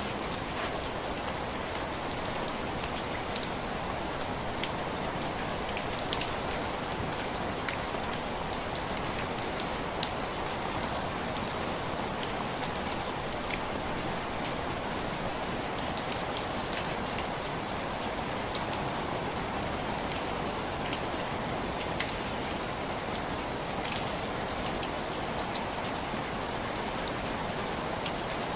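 Steady rain falling on window glass, an even hiss with many scattered sharp drop taps.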